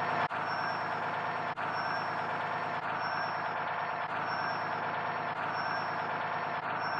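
Fire truck engine idling steadily, with a faint high beep repeating about once a second.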